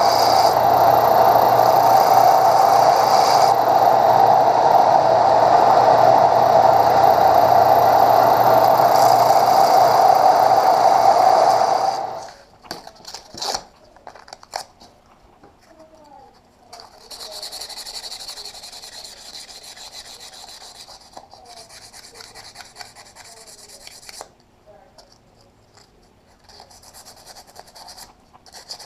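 A power tool runs steadily, loud and even, then shuts off abruptly about twelve seconds in. It is followed by quieter, intermittent rubbing and rasping strokes of hand finishing on the forged steel buckle.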